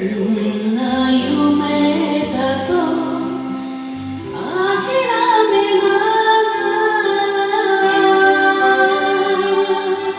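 A singer sings a Japanese ballad over a karaoke backing track, holding one long note through the second half.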